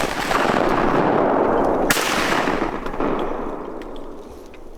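Two shotgun shots, one right at the start and another about two seconds in, each followed by a long rolling boom that dies away over the next couple of seconds.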